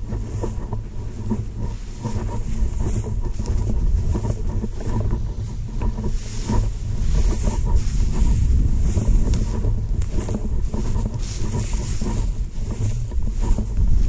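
Wind buffeting the camera microphone with a steady low rumble. Over it, the rhythmic swish of legs and boots pushing through tall dry grass as a hunter walks at an even pace.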